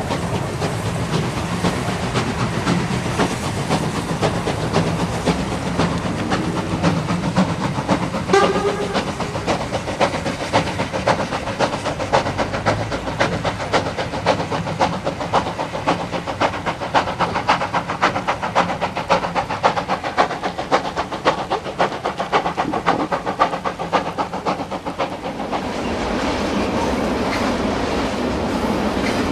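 DR class 95 steam tank locomotive 95 1027-2 working a passenger train, with rapid, even beats throughout and one short whistle blast about eight seconds in. Near the end the sound gives way to the steadier rolling noise of a freight train of tank wagons.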